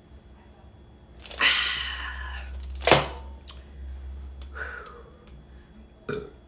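Close-up eating and table-handling sounds: a drawn-out noisy sound about a second in, then a sharp knock, a softer sound, and a short click near the end.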